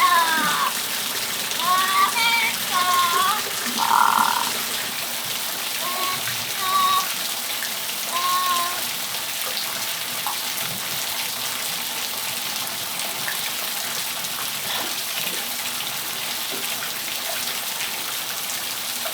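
Steady rain falling in a patio. A parrot calls several times with short, bending squawks and whistles in the first half, then only the rain is heard.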